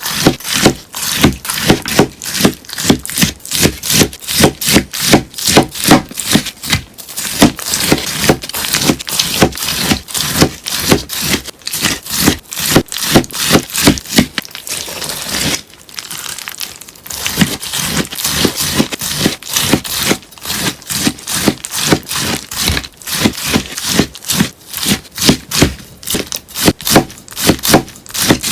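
A sponge being cut crisply, one sharp crunching stroke after another at about three a second, with a short softer rustling stretch about halfway through.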